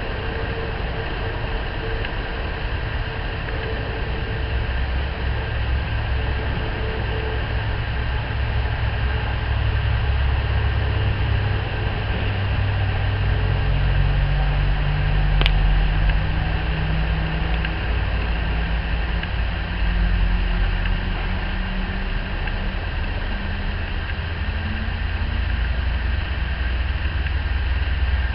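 A steady low engine-like rumble, its hum slowly rising in pitch through the second half, with one sharp click about halfway through.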